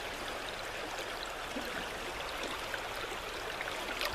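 Creek water running steadily, an even babbling wash with small splashy ticks.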